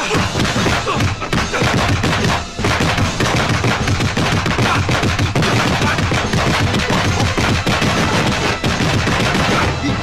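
Rapid, almost unbroken flurry of dubbed punch and block impact sound effects from a hand-to-hand kung fu exchange, with a brief break about two and a half seconds in.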